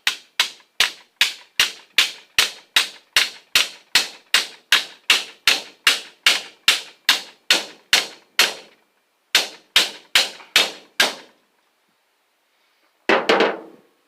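Hammer striking a steel bar from an old bed frame, used as a punch to drive copper windings out of an electric motor's stator slots: a steady run of sharp metal strikes about two and a half a second, a short pause, then a few more strikes. Near the end, one louder, longer clatter.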